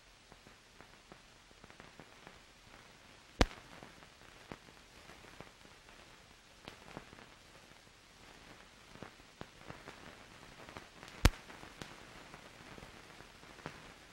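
Steady hiss and crackle with scattered clicks and two loud pops, about three and a half seconds and eleven seconds in: the surface noise of an old film's soundtrack with no sound recorded on it.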